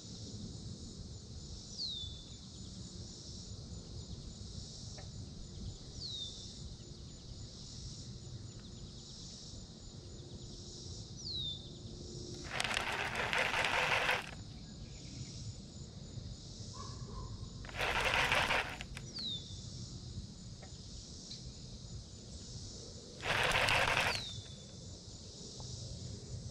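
Summer pondside ambience: a steady high insect buzz with a short falling whistle every few seconds. Four loud bursts of rushing noise, each about a second long, break in from about halfway through.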